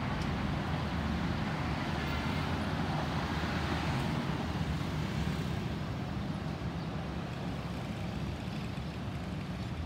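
Airbus A320-216's CFM56-5B turbofan engines rumbling as the airliner passes high overhead, a steady rushing noise that eases off slightly in the second half.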